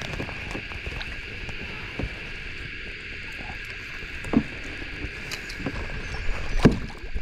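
A steady chorus of insects drones throughout. Over it come water and handling sounds as a small Murray cod is released, with a short knock about four seconds in and a louder one near the end.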